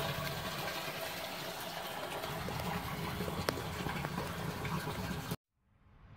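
Water from a French drain's outlet pipe pouring steadily into a storm drain catch basin through its sidewall, a continuous rushing splash; it cuts off suddenly near the end.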